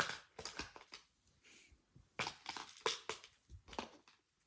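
A cardboard product box being handled and opened: a string of light taps, clicks and scrapes of the box and its packaging, in uneven clusters.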